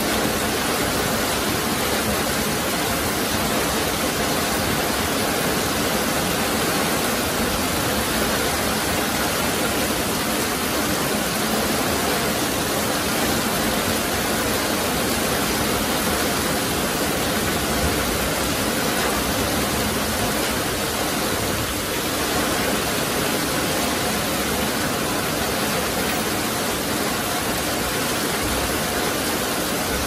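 Very heavy rain pouring down steadily: a dense, even wash of downpour noise with no letup and no thunderclaps.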